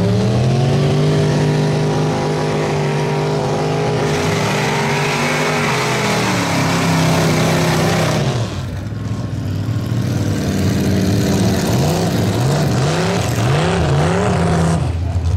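Old Dodge pickup mud truck's engine revving up hard as it drives off through the mud, holding high revs before easing off about six seconds in. Near the end it is revved up and down several times in quick succession.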